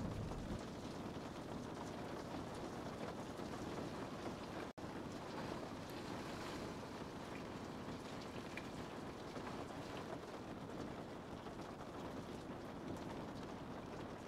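Steady rain falling, an even hiss with no speech or music. It cuts out completely for an instant about five seconds in, then carries on as before.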